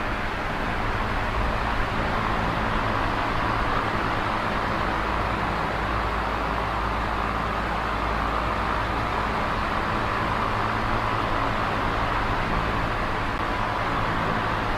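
Small oscillating electric fan running steadily: an even rush of moving air over a low motor hum, swelling gently now and then.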